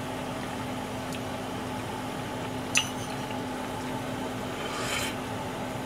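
A metal spoon dipping into a simmering frying pan of herring and vegetable stew to taste the broth, with one sharp clink against the pan about halfway through, a fainter tap earlier and a short hiss near the end, over a steady low hum.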